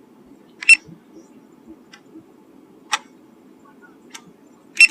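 A few short, sharp clicks over a low steady hum: one clear click about a second in, another near the middle, and a quick double click at the end.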